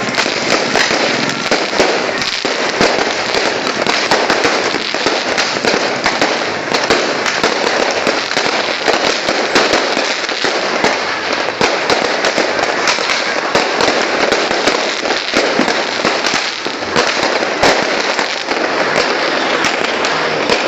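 Fireworks and firecrackers going off in a dense, continuous barrage, many sharp cracks and bangs overlapping with no break.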